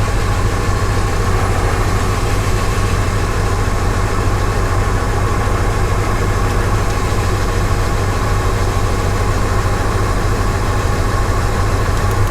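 Six-cylinder truck engine idling steadily while misfiring on several cylinders, as in a P0300 random-misfire fault. This is a cylinder drop test, with the number 2 spark plug wire pulled.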